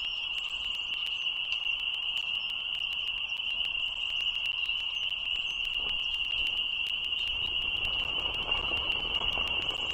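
Steady, unbroken chorus of frogs calling high-pitched, with scattered faint clicks and a low rumble rising near the end.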